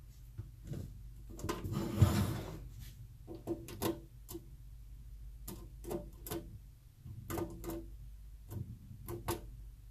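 Multimeter test probe tips clicking and scraping against the metal screw terminals of a power supply's terminal block: a run of small, irregular ticks as each output channel is probed in turn, with a brief rustle of the test leads about two seconds in.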